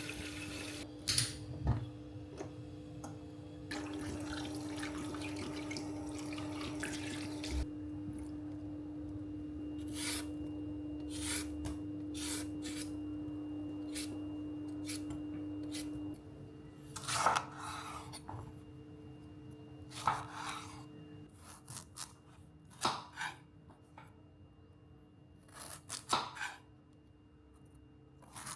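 Kitchen food-prep sounds: a water tap runs in short spells and is shut off, then scattered clicks, knocks and clatters of utensils and dishes being handled. A steady low hum runs under the first half.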